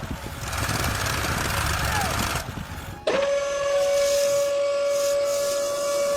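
A steady hiss, then about three seconds in a long single-pitch whistle blast starts and holds steady.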